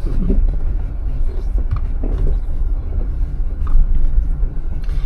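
Jeep driving slowly up a dirt off-road trail: a steady low engine and drivetrain rumble with a few brief knocks.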